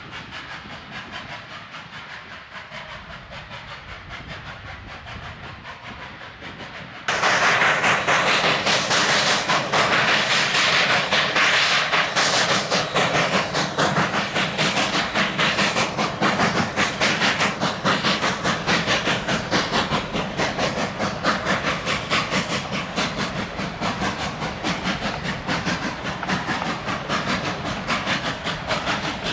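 Three-foot narrow-gauge steam train running, faint at first. About seven seconds in it jumps abruptly to a loud, close sound of the train working, a dense rapid rhythmic beat with a hiss that carries on steadily.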